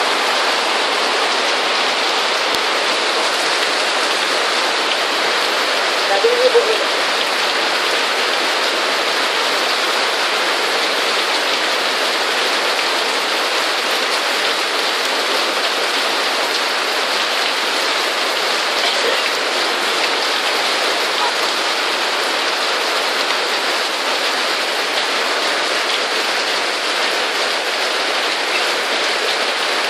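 Heavy rain pouring steadily, with a short, brief sound about six seconds in.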